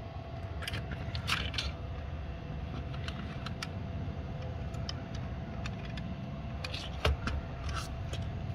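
Metal die-cast toy SUV being handled in the hand: scattered small clicks and rattles of its parts, with one louder knock about seven seconds in.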